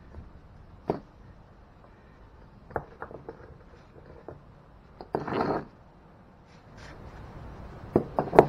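Old clay brick pavers being pried loose and lifted out of their sand bed by hand: scattered sharp clicks and knocks of brick on brick, a brief scrape about five seconds in, and louder knocks near the end.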